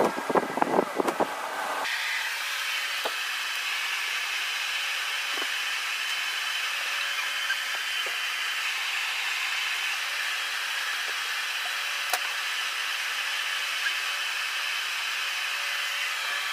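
A few scraping and knocking handling sounds, then a steady rushing, blower-like noise from a running electric appliance that switches on abruptly about two seconds in.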